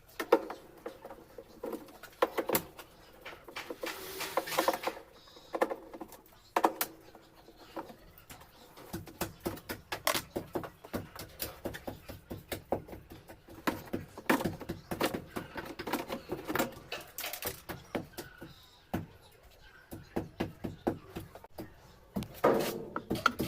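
Irregular clicks, taps and knocks of tools and washing-machine parts being handled during disassembly, with a rapid run of small clicks in the middle.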